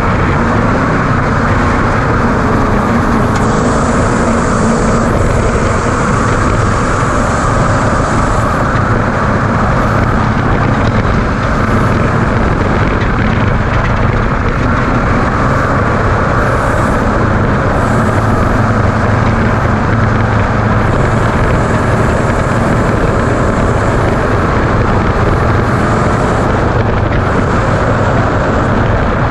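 Ford Ranger desert race truck driving at race pace, heard from inside the cab: a loud, steady mix of engine drone, rattling and tyre and rough-terrain noise.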